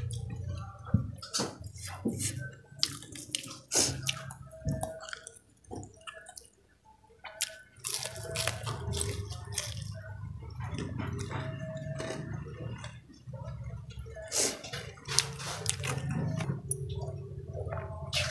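Close-up wet mouth sounds of eating: chewing, lip smacks, clicks and slurps in an irregular run, over a steady low hum, with a short lull midway. Near the end, sips of water from a glass.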